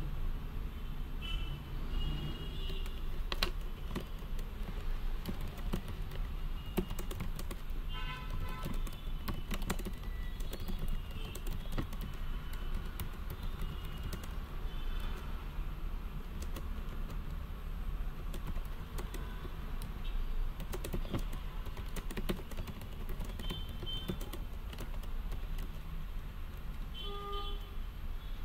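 Typing on a computer keyboard: scattered key clicks throughout, over a steady low background rumble, with short high-pitched tones now and then.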